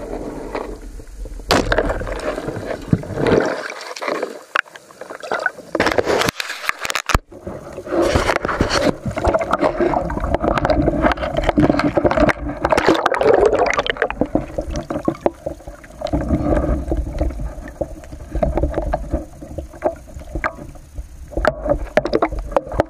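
Water sloshing and gurgling around a speargun-mounted camera, with irregular knocks and splashes as it moves between underwater and the surface.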